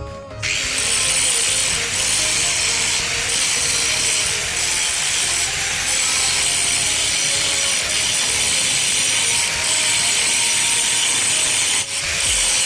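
A power tool running continuously against metal with a harsh, high hiss. It starts about half a second in and breaks off briefly near the end before going on.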